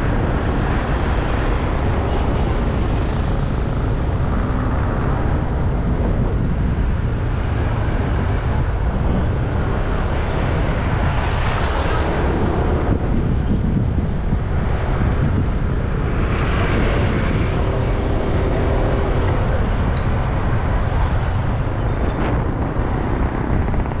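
Wind rumbling on the microphone of a moving vehicle, over steady road and traffic noise. Passing traffic swells louder about halfway through and again a few seconds later.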